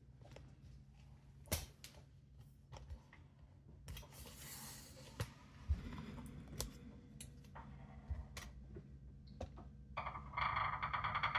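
Scattered clicks and knocks of a flathead screwdriver and hands working the plastic fittings of a sink drain strainer, with a brief hiss about four seconds in. Near the end a rapid, even rasping sets in as the drain's big plastic nut is tightened snug.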